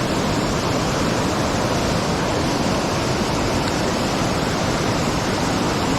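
Waterfall rushing: a steady, loud, even roar of falling water.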